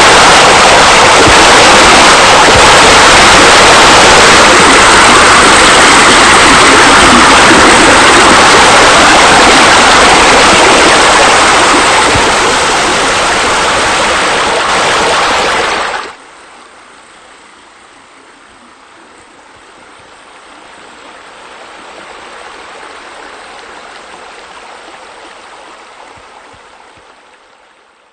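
Rushing water, loud and steady, cutting abruptly about sixteen seconds in to a much quieter flow that fades out near the end.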